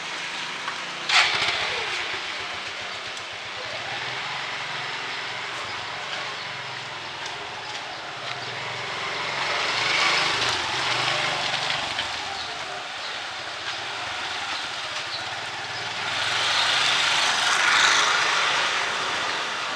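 Wet street ambience: a steady hiss of rain and wet road with a low engine hum. Vehicles pass twice, swelling about ten seconds in and again near the end. A sharp click about a second in.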